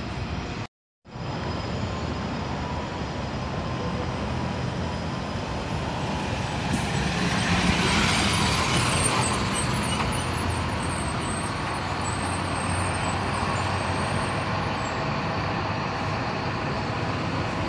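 City bus driving past close by: its engine and tyres grow loudest about halfway through, over the steady running of other buses.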